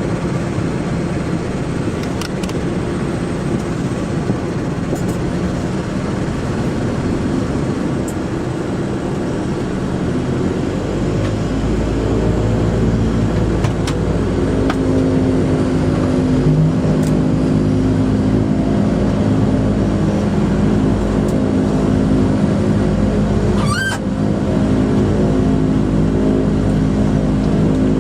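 Dash 8-100 turboprop engines and propellers heard from inside the cabin, a steady drone that grows louder about eleven seconds in, with steady propeller tones as engine power comes up. A brief chirp sounds near the end.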